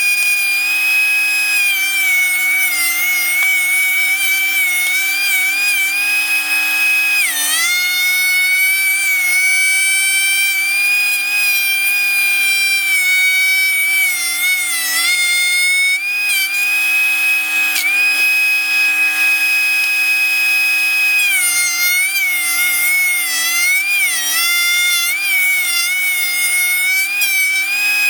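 DeWalt 13-inch thickness planer running, its motor giving a loud, high-pitched whine. The pitch drops and wavers several times, with sharp dips about seven seconds in and again around eighteen seconds. These dips are the motor bogging as pine boards feed through the cutter head.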